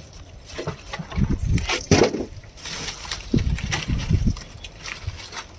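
Wind buffeting the microphone in irregular gusts, with a few knocks and scrapes from a heavy weight being lifted off a styrofoam fish box; the loudest knock is about two seconds in.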